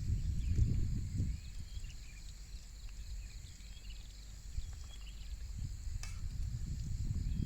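Wind buffeting the microphone, a low rumble that swells at first, eases off, then builds again near the end, over a steady high insect drone and scattered chirps.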